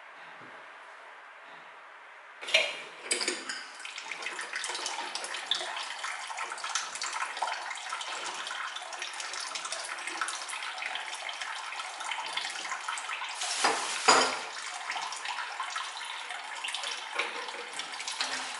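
Water running hard from a partly dismantled mixer tap, starting suddenly about two and a half seconds in as a steady hissing rush, with a louder surge at the start and again near the middle.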